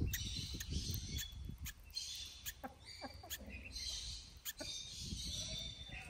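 Small parrot's beak clicking and picking at an eggshell in short, irregular taps as it opens the shell for a chick that is struggling to hatch. Bird chirps come and go behind it.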